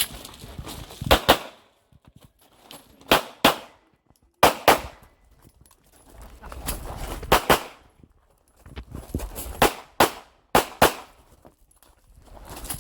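Glock 26 subcompact 9mm pistol fired in quick pairs of shots, about a dozen in all, with gaps of one to three seconds between the pairs as the shooter moves between targets.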